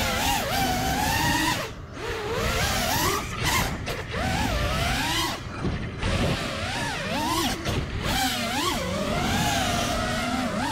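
Brushless motors and propellers of a 5-inch FPV quadcopter whining, the pitch rising and falling quickly with throttle as it flips and weaves, with low wind rush on the onboard GoPro's microphone. The sound briefly drops out twice, where the throttle is chopped.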